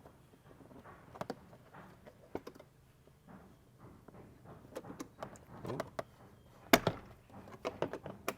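Scattered light clicks and knocks of plastic seat trim being handled and fitted back into place, with one sharper knock about two-thirds of the way through.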